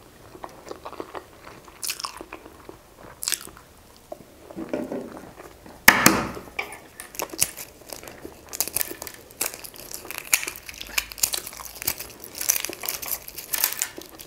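Eggshell of hard-boiled eggs crackling as it is cracked and peeled off by hand, mixed with chewing of egg. There is a louder knock about six seconds in, and the crackling grows dense in the second half.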